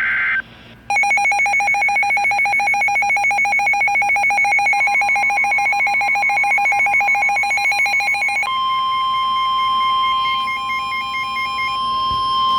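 Weather radio alert tones: a rapidly pulsing electronic alarm for about seven seconds, then the steady NOAA Weather Radio warning alarm tone, which signals that a warning, here a severe thunderstorm warning, is about to be broadcast.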